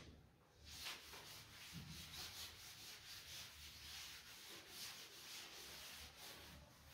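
A cloth duster wiping chalk off a chalkboard: faint, quick back-and-forth rubbing strokes, about three a second, starting about a second in.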